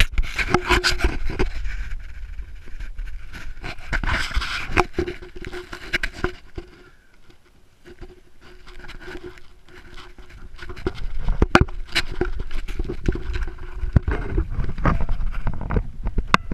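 Handling noise on a small camera: rubbing, scraping and many sharp knocks as it is moved about and gripped. A steady mid-pitched tone sounds under it for a few moments near the start and again for several seconds in the middle.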